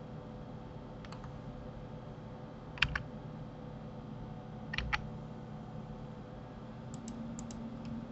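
Computer keyboard keys and mouse buttons clicking: two louder double clicks about three and five seconds in, with a few lighter clicks near the start and near the end, over a steady low hum.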